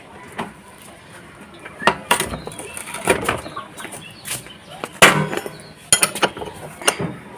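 Metal clanks and clinks as a Yamaha Fascino scooter is heaved up onto its centre stand, a scatter of separate knocks with the loudest about five seconds in.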